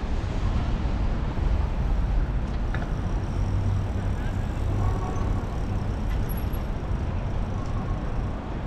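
City street traffic: cars and buses passing in a steady rumble.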